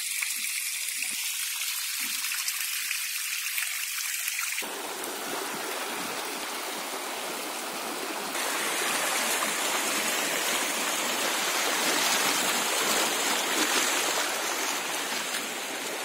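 Water rushing over rock: a small cascade splashing down a rock face, then a shallow stream flowing fast over flat bedrock with broken white water. The sound turns fuller about four and a half seconds in and louder again about eight seconds in.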